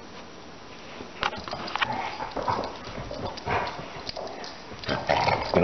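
Basset hound making a series of short, irregular vocal noises, starting about a second in, mixed with scattered knocks.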